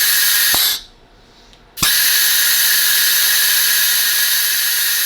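Compressed air hissing out of the CNC router spindle's pneumatic tool release and deduster as the release button is pressed. One blast cuts off under a second in with a click, and a longer blast starts with a click about two seconds in and lasts about three and a half seconds.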